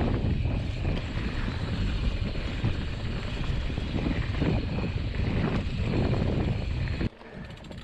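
Mountain bike rolling along a dirt forest trail: a steady rumble of tyres on the ground and rattling from the bike, with wind buffeting the handlebar-mounted camera's microphone. It drops suddenly quieter about seven seconds in.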